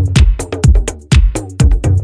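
Background music: upbeat electronic dance music with a steady four-on-the-floor kick drum, about two beats a second, and synth lines.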